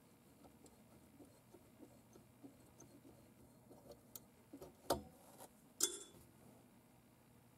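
EL84 power tube in a VOX AC10C1 tube amp being rocked and pulled out of its socket: faint ticks and scrapes of the pins working loose, then two sharper glassy clicks about a second apart as the tube comes free of the socket and its retaining spring.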